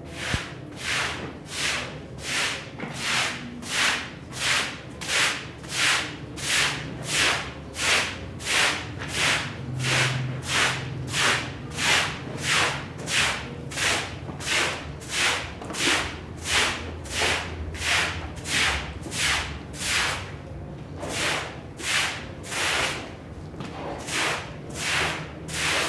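A hand tool is pushed back and forth over a rug in steady, even strokes, about one and a half a second, each a short swish. The rhythm pauses briefly about two-thirds of the way through.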